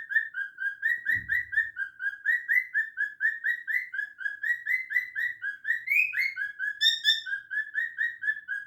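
A parrot chirping in a fast, steady run of short calls, about five or six a second, with one higher rising chirp partway through. A brief low thump about a second in.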